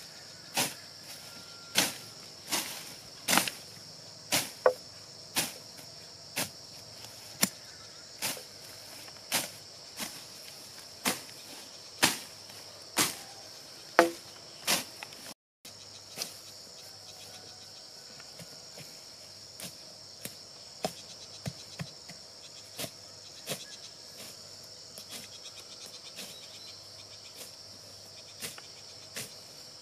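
Blade chopping into wood: sharp strikes about once a second for the first half, then fewer and fainter strikes after a cut. A steady high buzz of insects runs underneath.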